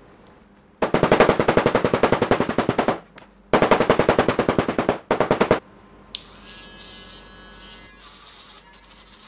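Hammer rapidly tapping a metal logo stamp into leather, about ten strikes a second, in two long runs and a short third one. About six seconds in, a small handheld rotary tool starts running quietly with a steady whine as it works the leather edge.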